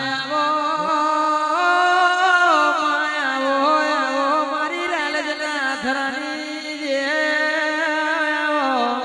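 A man singing a long, unbroken devotional alap in a Gujarati regdi to Mahakali. His voice holds notes and slides through ornamental turns, with no drum beat under it.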